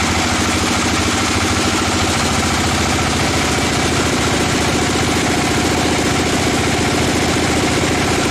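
An engine running steadily at constant speed, coming in suddenly at the start.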